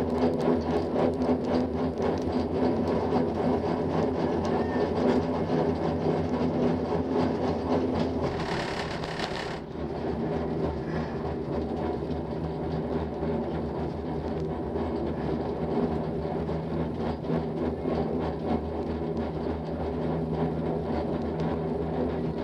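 Haul rope of a six-seat detachable gondola running over a line tower's sheaves: a steady mechanical hum with several held tones and faint ticking, with a brief hiss about eight seconds in.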